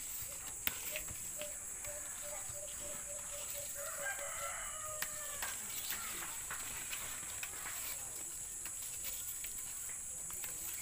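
A rooster crowing, loudest about four to five seconds in, over a steady high hiss, with sharp snaps and leaf rustles from young jackfruit shoots being picked by hand.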